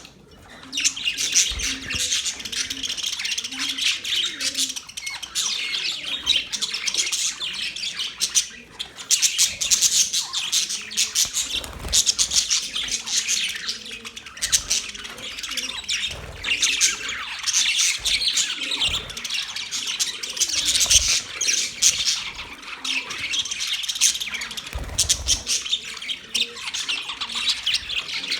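A flock of budgerigars chattering and chirping continuously, with dense overlapping warbles and squawks, dipping briefly about nine seconds in.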